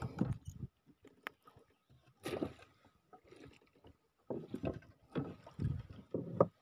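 Water sounds and knocks around a small wooden boat at sea, coming in irregular bursts, with a sharp click a little over a second in.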